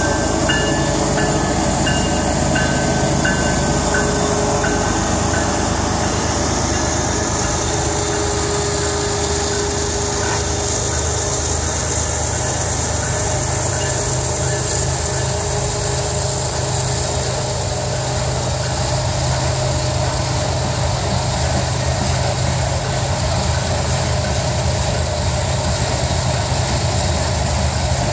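A diesel-hauled freight train passing close by: the lead locomotives go past at the start, then a long string of ballast hopper cars rolls by with a steady noise of steel wheels on rail.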